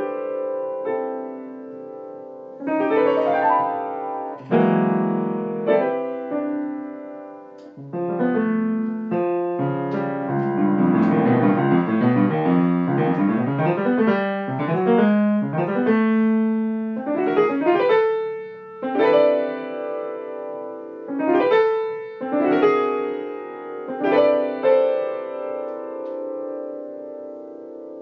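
Solo piano improvising on the whole-tone scale, the left hand on C–D–E and the right hand on F♯–G♯–A♯. Quick rising runs and held, ringing notes, with a dense flurry of notes in the middle and then a string of short upward figures, each landing on a held note.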